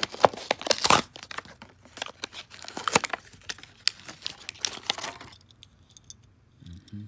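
Clear plastic blister pack crackling and crinkling as it is pulled apart by hand to free a die-cast toy car. The crackling stops about five seconds in.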